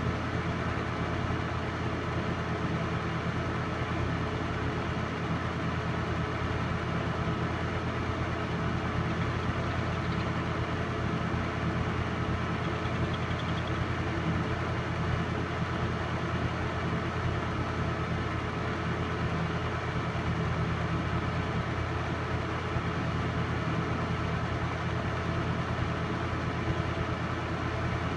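Steady mechanical whirring and hum from a running home-movie film projector, constant throughout.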